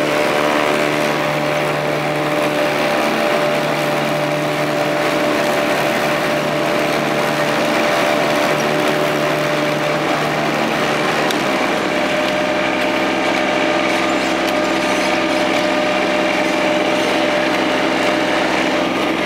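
Riding lawn tractor's engine running steadily as the tractor drives across grass, its note shifting about eleven seconds in.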